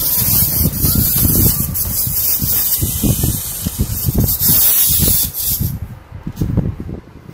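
Zoids Wild Dilofos wind-up toy walking on a tabletop: its clockwork spring mechanism whirs with a hiss while its plastic feet tap in a quick, uneven patter. The sound drops away sharply near the end.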